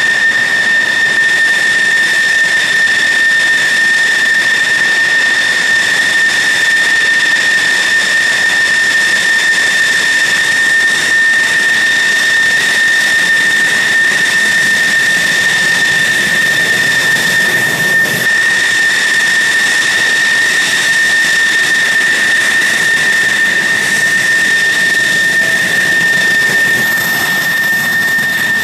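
F-16 Fighting Falcon turbofan engines running at taxi power: a loud, steady, high-pitched whine over a rushing hiss.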